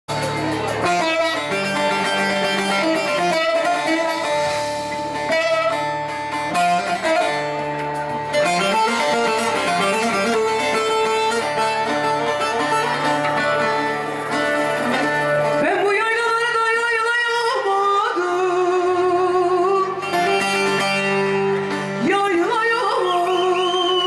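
Live Turkish folk music: a bağlama and an electronic keyboard play an instrumental introduction, and a woman's singing voice comes in near the end.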